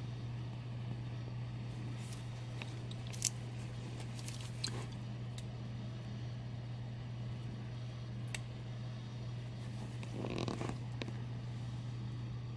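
Steady low hum with a few faint clicks and a short rustle about ten seconds in, likely from handling.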